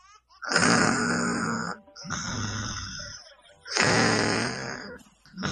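A person snoring in sleep, a cartoon snoring sound effect: three long snores about a second and a half apart, alternately louder and softer, each a low rattling buzz with a breathy hiss.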